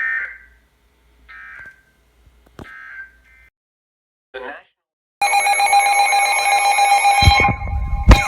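Three short buzzy data bursts about a second apart: the EAS end-of-message tones closing a weather radio warning. About five seconds in, a loud electronic alarm starts, several steady tones sounding together, with a fast warbling siren-like tone joining near the end.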